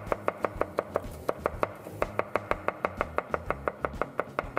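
Chef's knife mincing garlic on a cutting board: a fast, even chopping of the blade striking the board, about seven strokes a second, stopping just before the end.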